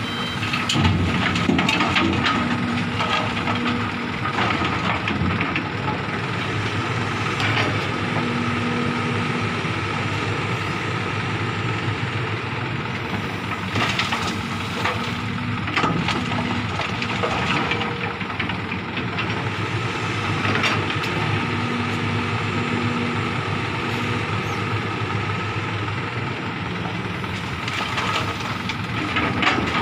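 Hitachi excavator's diesel engine running steadily as it loads a dump truck, with soil and rock clattering into the truck's steel bed a few times, most sharply about halfway through and again near the end.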